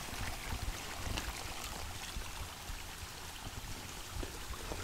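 Shallow water running over sandstone rock, a steady soft hiss.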